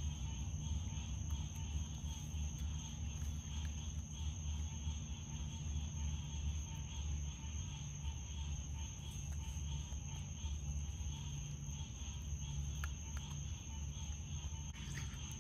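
Steady chorus of crickets or other night insects, a continuous high trill, over a low steady hum. A couple of faint clicks come late on.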